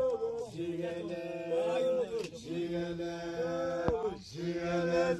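Slow sung chant: voices holding long notes in harmony, in phrases with short breaks between them.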